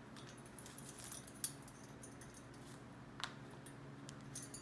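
Light clicks and small metallic taps as an Indian ringneck parrot's beak and claws grip and climb the wire of its cage. The clicks are scattered, the sharpest about a second and a half in, over a low steady hum.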